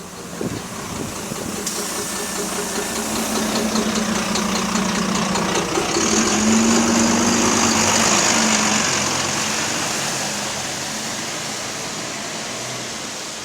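Bus diesel engine running with a rhythmic knocking, which the uploader takes for engine rod knock. The sound swells over several seconds, peaks about two-thirds of the way in, then eases off.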